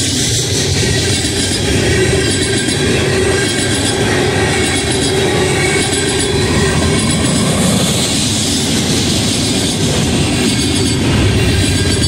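Freight train tank cars rolling past close by, their steel wheels clattering steadily on the rails with faint high wheel squeal at times. Near the end a deeper diesel rumble builds as the train's rear BNSF locomotives draw level.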